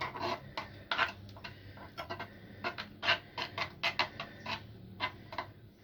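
Irregular light clicks and taps, about two or three a second, of small items being handled by hand.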